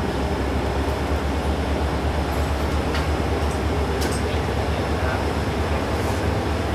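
Inside a KiHa 20 diesel railcar: its underfloor DMH17 diesel engine running with a steady low drone, along with the car's running rumble, and a couple of light clicks about three and four seconds in.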